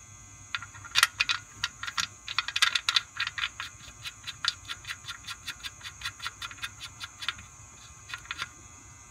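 Sharp metal clicks as the oil pan drain plug is threaded back into the pan by hand: a long run of irregular clicks, about three a second, with a few more near the end.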